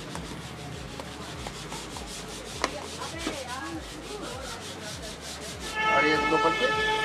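Cheese being grated on a hand grater over sandwiches: a rubbing, rasping scrape. About six seconds in, a louder steady sound of several high tones held together joins it.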